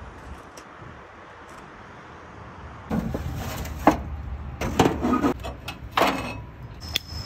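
Faint steady outdoor background, then from about three seconds in a rusty metal grill being handled: a few loud clanks and scraping knocks of metal on metal.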